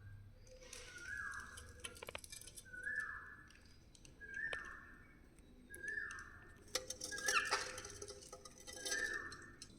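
A budgerigar giving one short call over and over, about once a second, each call falling in pitch, with quick chirps and clicks between the calls.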